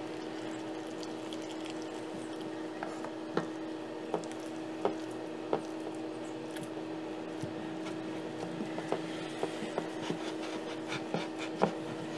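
Hand mixing flour and water into a stiff dough in a glass bowl, giving soft rubbing and squishing with short sharp knocks every second or so from about three seconds in, coming faster near the end. A steady hum runs underneath.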